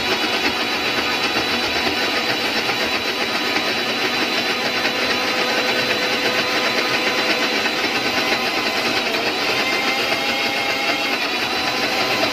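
Morphy Richards Marvel mixer grinder running at a steady speed, its motor whining as the blades churn a thick paste of cooked tomatoes, tamarind and spiced oil into chutney.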